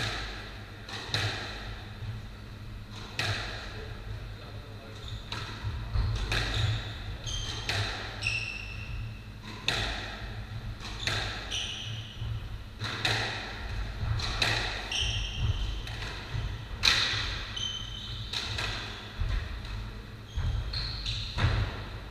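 Squash rally: the ball struck by rackets and smacking off the court walls about once a second, with short high squeaks of court shoes on the wooden floor between shots.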